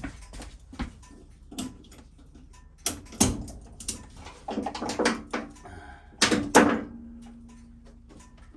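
Ratchet tie-down straps being released and unhooked from a motorcycle on a lift: a run of clicks, clanks and knocks, loudest about three seconds in and again near six and a half seconds. A low steady hum follows near the end.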